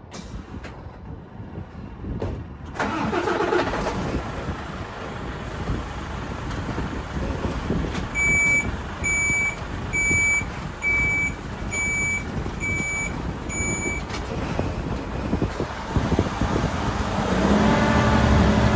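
Semi-truck tractor unit's diesel engine running as it reverses to couple with the trailer, its reversing alarm beeping seven times at just under one beep a second. The engine note grows louder near the end.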